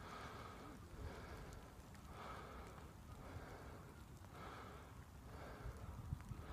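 Faint breathing, a soft breath about once a second.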